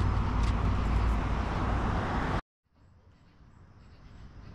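Outdoor car-meet ambience with a steady low rumble, such as vehicles idling nearby. A little over halfway through it cuts off abruptly to silence, then quiet outdoor background sound slowly fades back in.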